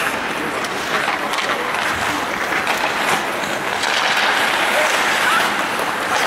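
Ice hockey play: skate blades scraping and carving the ice, with scattered clacks of sticks and puck.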